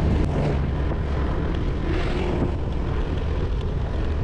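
Motor scooter engine running at a steady cruise while riding, with wind and road noise on the microphone.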